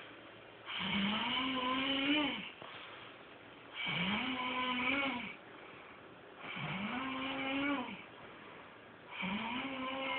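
A man snoring in his sleep: four long, pitched snores about every three seconds, each holding a buzzing tone that rises slightly and then drops off at its end, with quieter breaths between.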